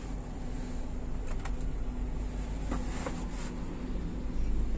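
Steady low hum in the cabin of a 2004 Toyota Alphard with its 2.4-litre engine idling and the air-conditioning blowers running, with a few faint clicks between about one and three seconds in.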